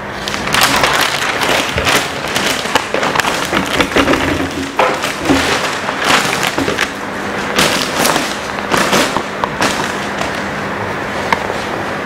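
Large flip-chart paper sheets crackling and rustling as they are turned over the top of the easel. There are many sharp crackles and a loud rustle throughout.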